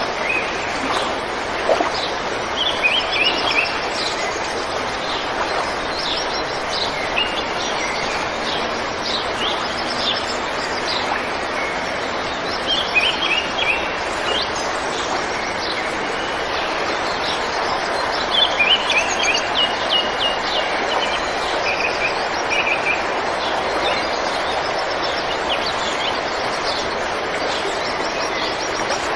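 Wild birds chirping and twittering in quick clusters of short, high calls, over a steady rushing background noise. The chirping is busiest a few seconds in, around the middle and again a little later.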